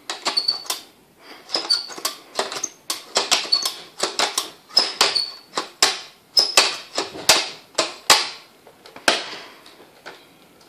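Plastic toy cash register being handled by a small child: a quick irregular run of sharp plastic clacks and key presses, many followed by a short high electronic beep.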